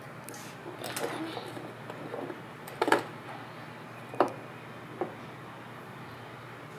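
Handling noise from slime-making: four sharp knocks and clicks as small objects are bumped or set down on a table, the loudest about three seconds in.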